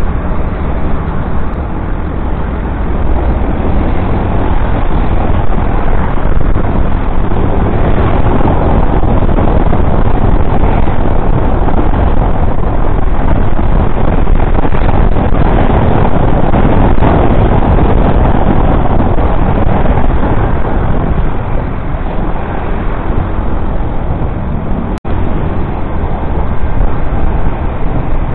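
Steady rush of wind and road noise from a moving motorcycle, louder through the middle stretch and easing later on, with a momentary cut-out near the end.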